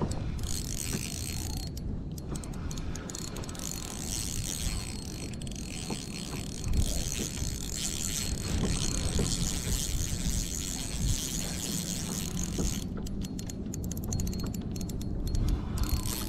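Akuma RCX 3000 spinning reel being cranked to retrieve line, its gears whirring steadily. The winding stops about thirteen seconds in, leaving a few scattered clicks from handling the reel.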